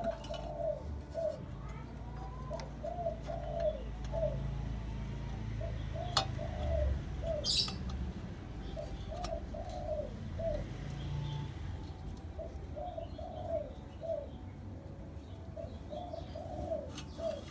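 A dove cooing in repeated short phrases of a few notes each, every few seconds, over a low steady background rumble, with a couple of faint clicks.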